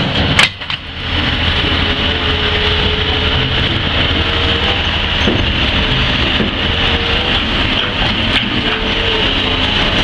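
Diesel engine of a wheeled scrap-yard material handler with an orange-peel grapple running steadily, briefly dropping out under a second in.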